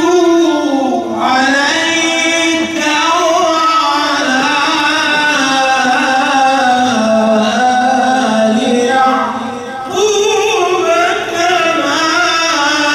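A man's voice reciting the Quran in the melodic tajweed style, into a microphone. Long ornamented phrases of held notes slide up and down, with short breaks about a second in and about ten seconds in.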